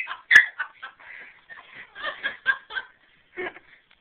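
Two sharp squeaks from a squeaky rubber pig toy right at the start, then people laughing in a run of short giggling bursts that trail off about three seconds in.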